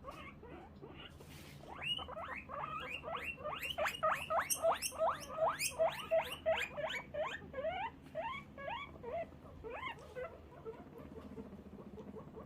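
Guinea pig squealing in a quick run of rising squeaks, about three a second, starting about two seconds in and dying away near the end.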